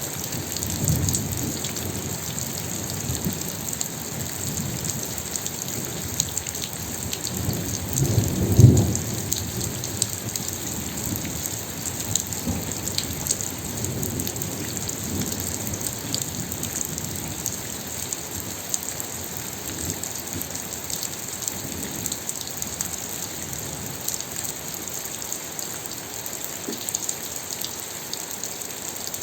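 Steady rain falling, an even hiss throughout. Low rumbles swell under it a few times, the loudest a little under nine seconds in.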